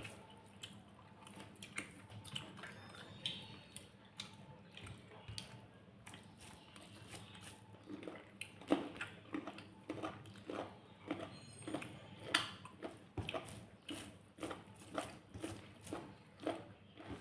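A person chewing a mouthful of rice and curry with wet mouth clicks. It is scattered at first, then settles into a steady chewing rhythm of about two smacks a second about halfway through.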